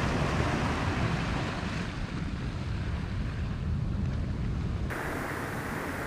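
Wind buffeting the camera microphone over the wash of sea waves breaking on rocks, a steady rumbling noise. It changes abruptly about five seconds in.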